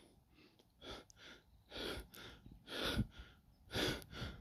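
Breathing close to the microphone: short breaths, in and out, about one full breath a second, the stronger ones a little over a second apart.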